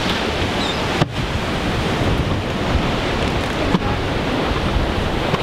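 Wind buffeting the microphone over the steady wash of ocean surf, a dense rushing noise heaviest in the low rumble.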